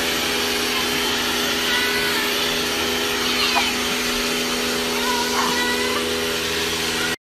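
Pressure washer running steadily, its motor humming under the hiss of the water jet spraying onto paving stones. The sound starts and stops abruptly.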